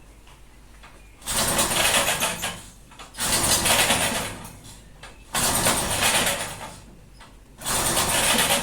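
Briggs & Stratton push-mower engine cranked four times by its recoil pull cord, each pull a second or so of rapid cranking, without catching. The owner puts the failure to start down to the fuel level being too low for the tank-mounted carburettor to pick up fuel.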